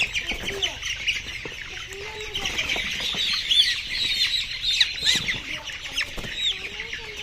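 A flock of layer chickens calling all at once: a dense din of short, high overlapping chirps and squawks, with scattered lower clucking calls among them, busiest in the middle.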